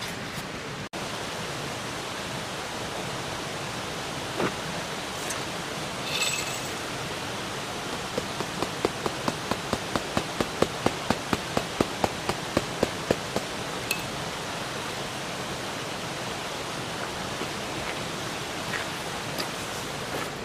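Steady rushing background noise outdoors, with a quick, regular run of about twenty clicks, three or four a second, in the middle.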